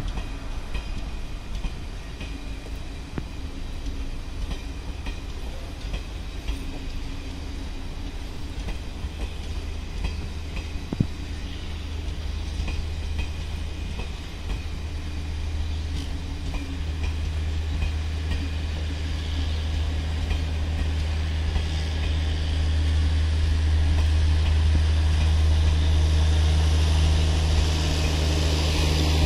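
Passenger coaches of a long train rolling past on the track: a steady rumble with occasional wheel clicks over rail joints, gradually growing louder toward the end.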